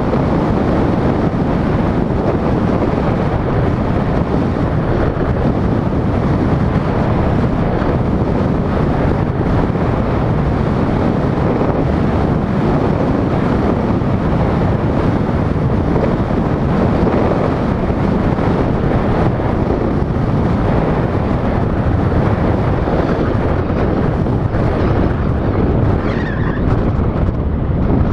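Steady wind rushing over the camera's microphone, mixed with road and tyre noise from a vehicle driving at speed.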